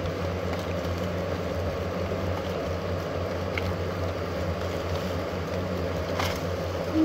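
A swarm of hornets buzzing in a steady drone around their paper nest while it is being pulled apart, the colony stirred up by the disturbance. A couple of faint clicks sound as the comb is handled.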